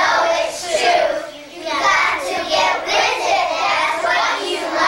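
A group of young children singing together, without audible accompaniment.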